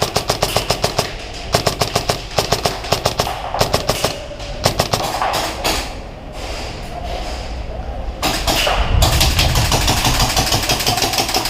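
Airsoft electric gun (a VFC Sabre AEG with a double-sector-gear DSG gearbox) firing several long full-auto bursts of fast, sharp cracks in the first few seconds. From about two-thirds of the way through, a continuous rushing noise takes over.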